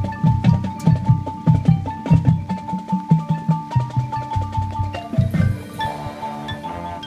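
Marching band music: a held high note over a steady drum pulse of about three beats a second. The drums drop out about five seconds in, leaving sustained chords with high mallet-percussion notes.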